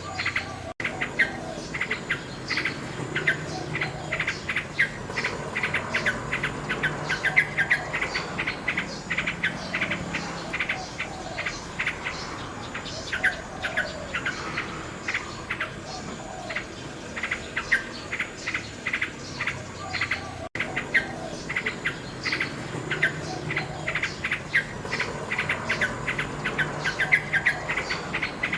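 Nightingale singing in rapid runs of short repeated notes, over a steady background of chirping insects. The sound drops out for an instant twice, about a second in and again about twenty seconds in.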